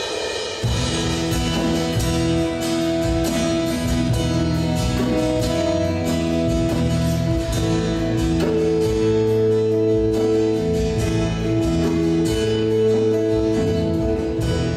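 Live band playing a worship song: strummed acoustic guitar with electric guitars and piano, the low end of the full band coming in about half a second in.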